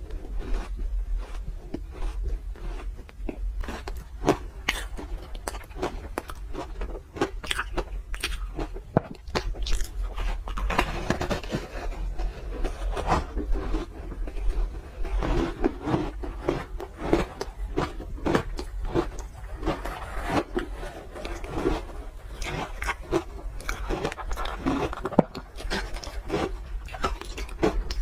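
Close-miked crunching of pink ice being bitten and chewed: a dense, irregular run of sharp cracks and crackles, with softer wet chewing between bites, over a steady low hum.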